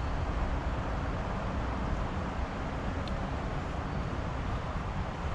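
Wind buffeting the microphone: a steady, low rumbling noise, with a faint tick about three seconds in.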